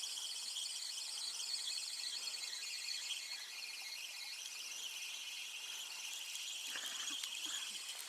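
Steady, high-pitched insect chorus chirring on without a break.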